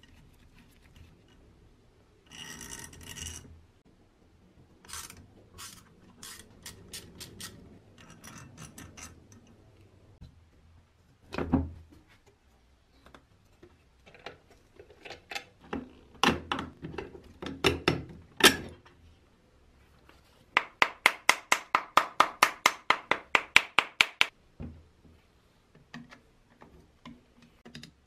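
Hand-tool and workshop handling sounds on an old metal desk fan: rubbing and scraping, a few knocks, then a run of rapid, evenly spaced clicks, about five a second for roughly four seconds.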